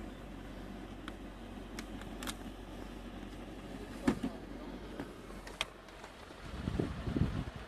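Vehicle engine running with a low, steady hum, heard from inside the cabin. A few sharp clicks sound over it, one loud about four seconds in, and there is a burst of low, uneven rumbling near the end.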